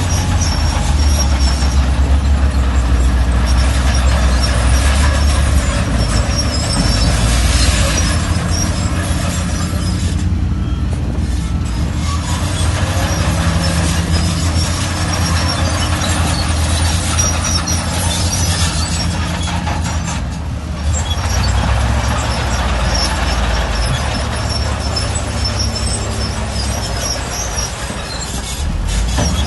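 Shantui crawler bulldozer's diesel engine running steadily under load with a deep rumble, over scattered short high-pitched squeaks from the moving machine.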